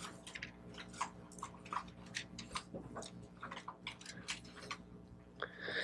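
Thin Bible pages being leafed through at a lectern microphone: a run of soft, irregular paper rustles and crackly ticks over a faint steady hum.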